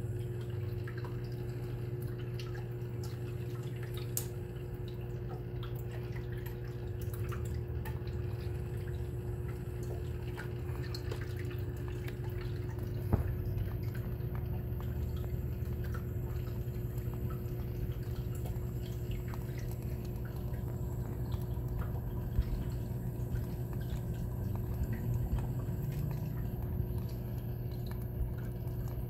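Reef aquarium's water circulation running: a steady low pump hum under small drips and trickles of water, with one sharper click about halfway through.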